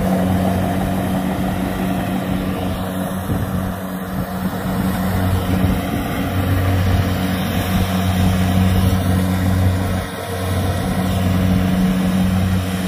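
Two Kubota DC70 rice combine harvesters running under load while cutting and threshing rice, their diesel engines giving a steady, even hum. The hum dips briefly about ten seconds in.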